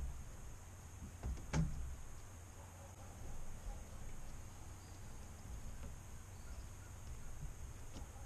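Quiet lakeside ambience: a steady high-pitched hum and low rumble, with two sharp knocks about a second and a half in.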